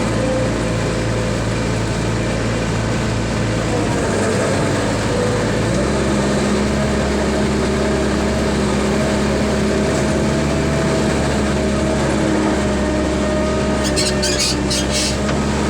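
Skid steer loader's engine running, its pitch shifting about four to six seconds in as the revs change. A short run of rattling clicks comes near the end.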